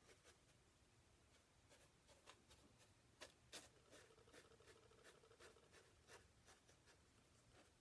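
Faint scratchy dabs and strokes of a bristle brush laying oil paint onto a small painting panel: a scattering of soft ticks, the two sharpest a little after three seconds in.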